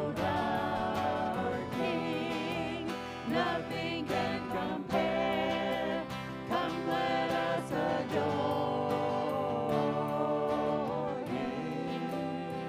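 Live church worship band music: several voices singing a slow congregational song over piano, guitars and drums.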